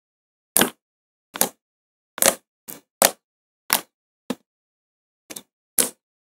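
Fingers poking and pressing into thick white slime, making about nine short wet pops and squishes at irregular intervals, with silence between them.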